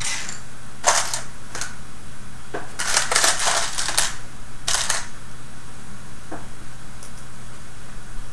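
Small plastic kit parts clicking and clattering as they are picked out and handled, in scattered short bursts with a busier rattle about three to four seconds in.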